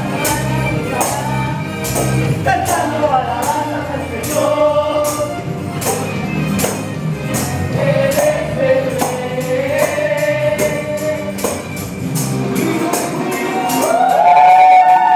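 Praise and worship music: singing over a tambourine jingling in a steady beat, about two strikes a second.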